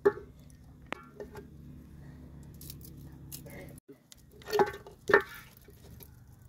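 A wooden stirring stick scrapes and knocks against an aluminium cooking pot of thick mash. About four and a half and five seconds in come two louder clatters as a plate is set in the pot and the pot is handled.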